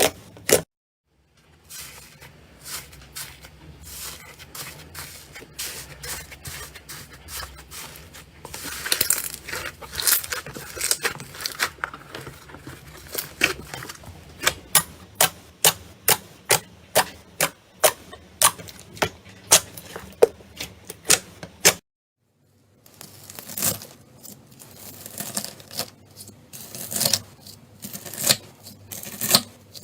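Slime being worked by hand, giving a dense, irregular run of sharp pops and clicks. The sound drops out completely twice, briefly.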